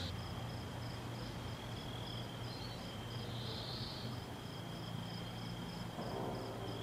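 Crickets chirping in a summer garden: a high, regular chirp repeating a few times a second over a steady thin trill. Soft music comes in near the end.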